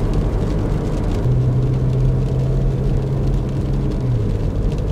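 Car driving on a wet road, heard from inside the cabin: steady engine and road rumble. A low steady hum comes in about a second in and eases off near the end.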